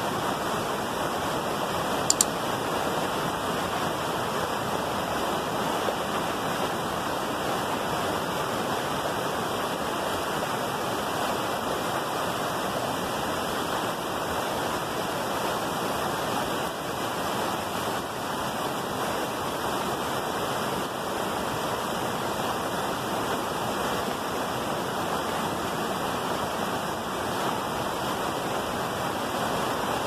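Whitewater rushing over and around boulders in a rocky river cascade, a steady, unbroken rush of water. A brief double click about two seconds in.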